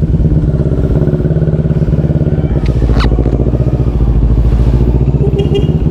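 CFMoto NK400's parallel-twin engine running steadily through a newly fitted Akrapovič muffler on a twisted elbow pipe with resonator. A brief click sounds about three seconds in.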